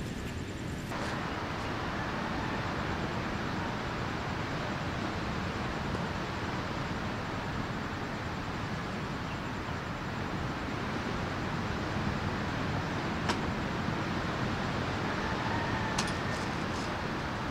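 Steady outdoor background noise, a rushing ambience like wind or distant traffic. Sharp clicks come about thirteen seconds in and again near the end, the later ones as a metal-framed folding camp chair is opened.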